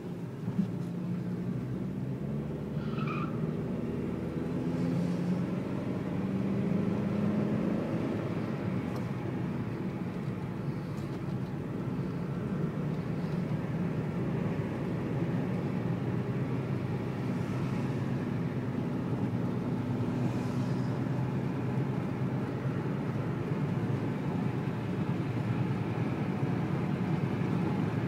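Car engine and tyre noise heard from inside the cabin while driving along a street, a steady hum that grows slightly louder a few seconds in. A faint, brief high tone sounds about three seconds in.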